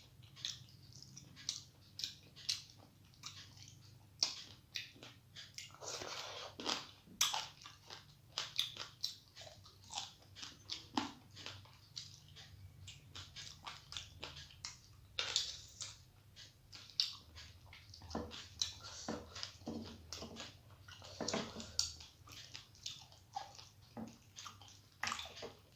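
A person eating close to the microphone: chewing and crunching food, with many irregular mouth smacks and crunches.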